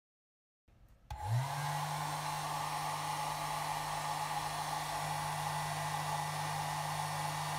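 Braun handheld hair dryer switched on: its motor spins up about a second in, then it runs steadily, blowing hot air with a steady hum.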